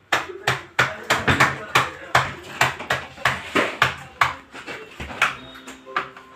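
A voice speaking quickly in short bursts, the words not made out.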